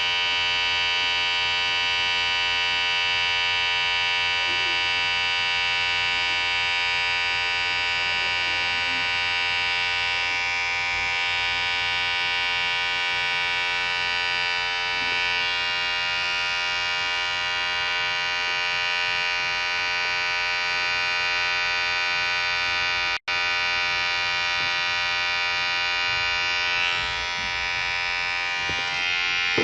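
Electric hair clipper running steadily with a constant high buzz, broken by a split-second gap about 23 seconds in.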